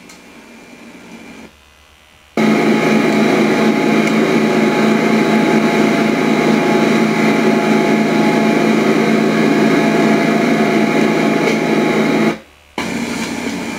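Hot-water pressure washer running: a loud, steady machine noise with a hum in it. It starts abruptly about two seconds in and cuts off suddenly shortly before the end.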